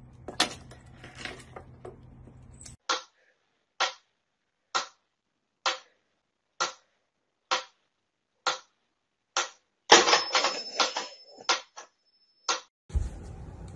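Mechanical pendulum metronome ticking steadily, about one sharp tick a second. About ten seconds in, a louder burst of rattling clicks with a thin high ring, then the ticking carries on. Before the ticking, a few seconds of scattered light clicks and rustles.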